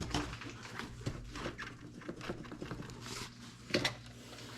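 Filters being worked back into their housing by hand: scattered small clicks, taps and rustles of plastic and rubber, with one sharper knock near the end.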